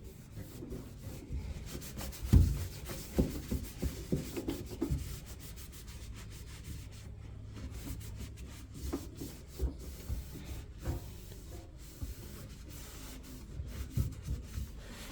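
Irregular rubbing and scraping from hands cleaning the parts of a tumble dryer, with scattered clicks and knocks and one louder knock a couple of seconds in.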